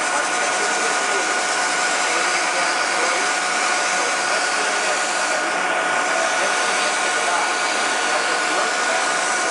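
Metal lathe running at a steady speed with a constant whine, a steel bar spinning in the chuck. A cloth held against the turning bar adds an even rubbing hiss as it is polished.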